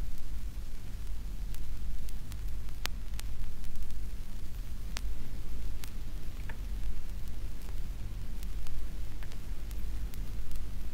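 Steady hiss and low hum of an old recording, with scattered sharp clicks and crackles, in a pause between recited verses.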